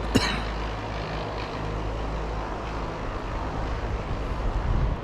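Steady rush of mountain-stream water with low wind rumble on the microphone. A single sharp click comes just after the start, and the rumble swells briefly near the end.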